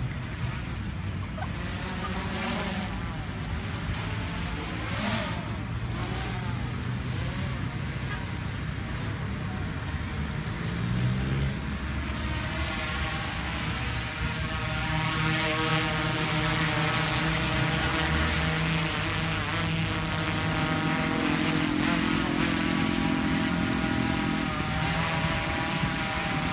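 DJI Inspire 1 quadcopter's four rotors whining in flight, their pitch shifting as it manoeuvres overhead. About halfway through it comes down to hover close by, and the whine grows louder and holds a steadier pitch.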